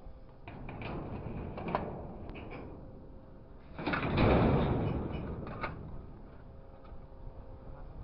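Scrap metal let go from a grapple truck's orange-peel grab clatters into the truck's steel bed about four seconds in; this is the loudest sound. Lighter metallic knocks come before and after it, over a faint steady hum of the running machinery.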